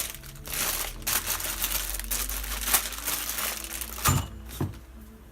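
Packaging crinkling and rustling as car parts are handled and unwrapped, with two short knocks about four seconds in.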